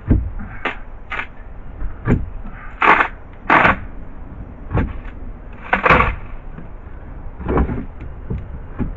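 A section of a boat's wooden floor being worked loose by hand: a dozen or so irregular knocks, cracks and short scraping creaks of wood, several of them longer and harsher.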